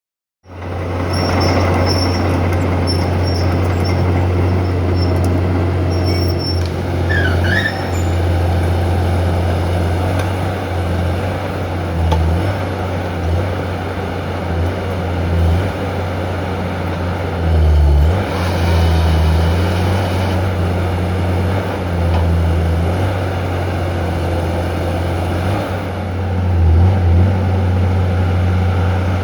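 Heavy diesel engine of a Valmet 415 forestry machine running steadily under hydraulic load, its low drone dipping and swelling as the saw head works. There is a brief high chirp about seven seconds in, and a stretch of louder, hissier noise from about eighteen to twenty seconds in.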